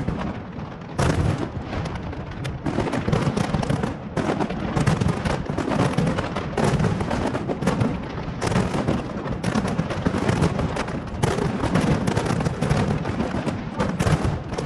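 Fireworks display exploding in a dense, continuous barrage, bangs following one another several times a second and overlapping.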